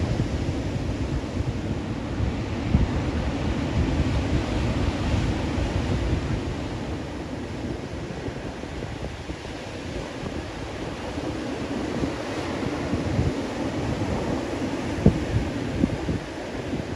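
Ocean surf breaking and washing up the shore, with wind buffeting the microphone in low, uneven rumbles and a couple of sharp knocks near the end.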